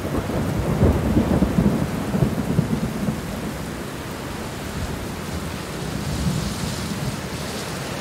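Heavy rain pouring steadily, with a low rumble of thunder during the first three seconds.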